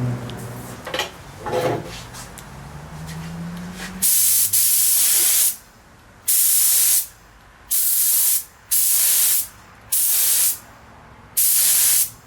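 Sprayer misting PVA release film over freshly applied gelcoat in six loud hissing bursts, each about a second long, starting about four seconds in after some quieter handling sounds.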